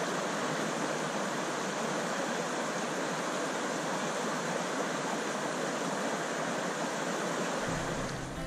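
Steady rushing of white water pouring through a river rapid. Music starts to come in near the end.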